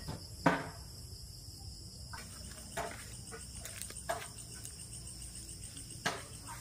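Crickets chirring steadily in a high pitch, with a sharp knock about half a second in and a few fainter knocks after it.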